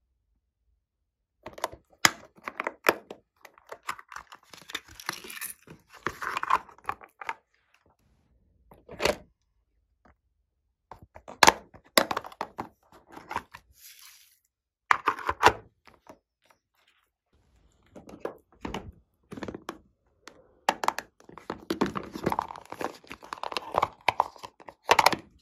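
Glossy slime being handled and mixed, giving sharp clicks, pops and crackles in short bursts with silent pauses between them.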